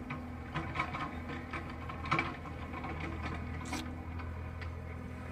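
Heavy earthmoving machine's diesel engine running steadily, with scattered metallic clanks and knocks from the working machine; the loudest knock comes about two seconds in.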